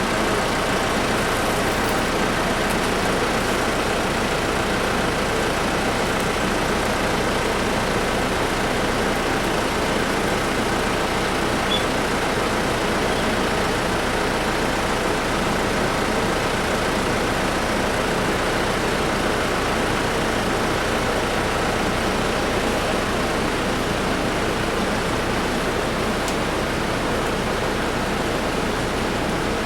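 A motor running steadily, with an even hiss and no change in pitch.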